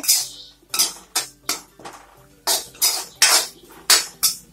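Metal spoon scraping and stirring onion-tomato masala around a large metal kadai, about eight uneven strokes of metal on metal.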